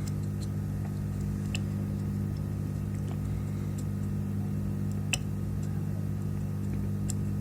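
Steady low electrical hum, with a few light clicks: one about a second and a half in, the sharpest about five seconds in, and another near the end.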